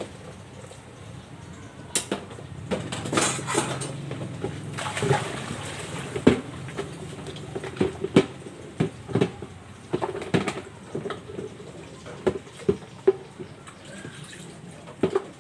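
Dishes being washed by hand: plates and cutlery clink and clatter many times over splashing water, with the water heaviest a few seconds in.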